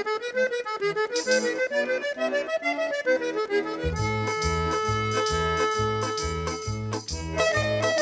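Instrumental background music: a wavering melody line, joined about four seconds in by a held tone and a steady, regularly pulsing bass beat.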